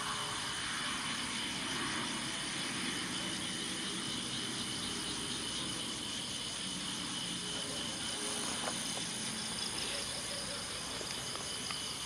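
Night insects, crickets, chirring steadily in several high-pitched layers over a low background hum, with a few faint ticks.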